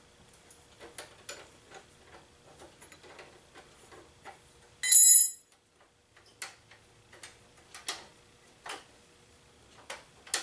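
Quiet metallic clicking, a few clicks a second, as the rear brake-rod adjuster nut of a Honda CT70 drum brake is backed off, first with a ratchet and then turned by hand. About five seconds in there is a single louder metallic clink with a short ring.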